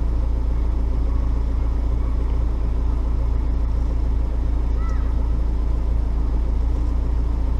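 A steady low rumble, with a short faint chirp about five seconds in.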